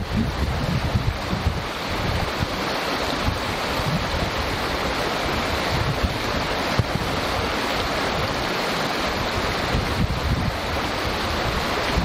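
Small creek rushing and babbling over its bed in a steady, unbroken wash of water. Irregular low rumbles of wind buffet the microphone.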